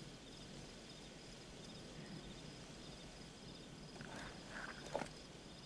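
Crickets chirping faintly and steadily in a quiet night ambience. A soft rustle of clothing begins about four seconds in, with a short click at about five seconds.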